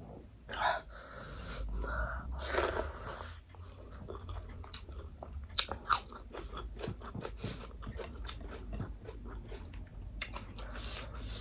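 Close-up eating of crispy fried fish: a few louder bites in the first few seconds, then steady crunchy chewing with many short crisp crunches.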